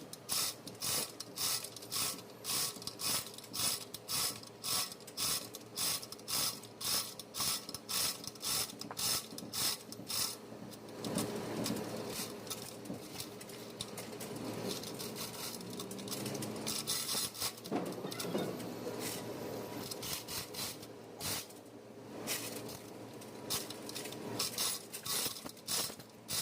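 Hand-tool work during an engine overhaul: a run of regular strokes, about two a second, for the first ten seconds, then irregular rubbing and clicking.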